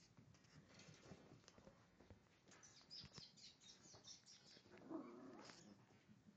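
Faint high-pitched squeaks and yips of poodle puppies, several short ones in quick succession about halfway through and a louder one near the end, among small scattered clicks.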